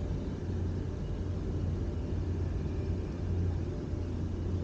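Steady low hum under a constant outdoor rumble, unchanging throughout.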